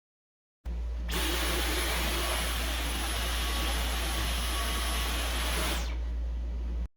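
Dyson V11 cordless stick vacuum running: a steady rush of suction with a thin high whine. It starts about half a second in, grows louder a moment later, eases near the end and cuts off suddenly.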